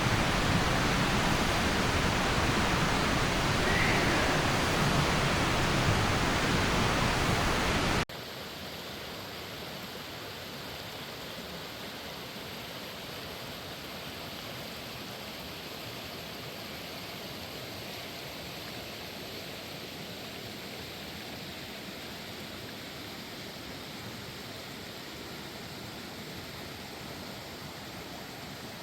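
Steady rushing noise of running water, which drops suddenly to a quieter, even hiss about eight seconds in.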